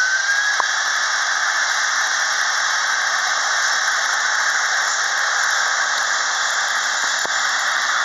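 Airbus A320-232's twin IAE V2500 turbofan engines running at taxi power as the jet lines up for takeoff. A loud, steady jet hiss and roar with a high engine whine that stops rising and holds steady about half a second in.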